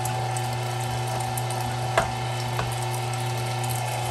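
Electric meat grinder running steadily, a low hum with a higher whine over it, as it grinds cubed pork fat. A few sharp clicks and crackles from the meat in the auger, the loudest about two seconds in.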